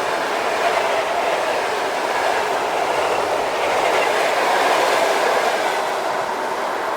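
A train passing close by on the electrified main line: a loud, steady rush of wheels running on the rails, with some light clickety-clack.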